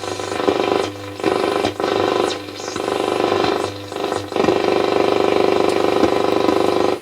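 Roberts R707 transistor radio playing through its own speaker, picking up medium-wave stations weakly: a shifting mix of broadcast sound and noise that changes every second or so, with poor sensitivity blamed on the IF amplifier module. It cuts off abruptly at the end.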